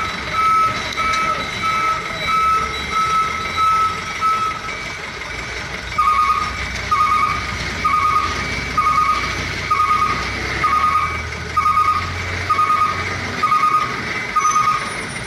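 Truck's reversing alarm beeping, about two beeps a second, over the low running of a truck engine. The beeping stops about four seconds in and starts again a second or two later.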